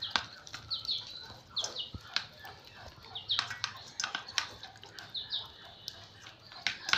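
Brahma chickens pecking moistened semolina feed from a stainless-steel bowl: irregular quick taps of beaks on the metal. Short high chirps sound now and then, about four times.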